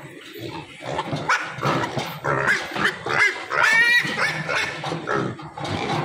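A group of young pigs grunting and squealing as they jostle at a feed hopper, with many short high squeals coming thick from about a second in.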